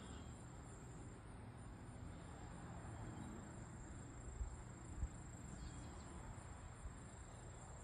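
Faint outdoor ambience: a steady high-pitched insect trill over a low rumble, with a couple of soft knocks about halfway through.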